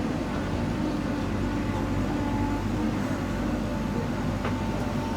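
Heavy diesel engine of earthmoving machinery running steadily: a continuous low drone with a faint steady high tone above it.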